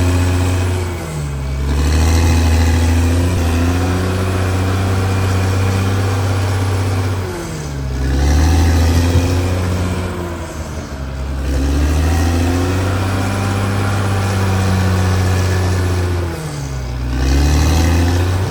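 CAT D6R XL bulldozer's diesel engine running hard, its pitch sagging and then climbing back up three times: about a second in, around eight seconds and near the end.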